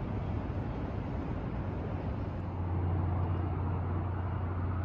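Outdoor vehicle noise in a city: a steady rush with a low engine hum that grows stronger about halfway through.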